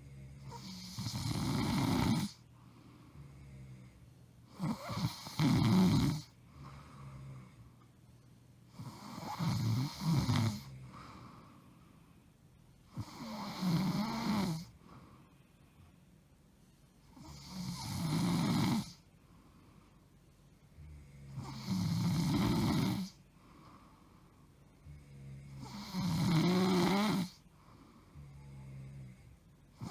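A woman snoring loudly in her sleep: a long, rough snore about every four seconds, seven in all, with quieter breaths between them.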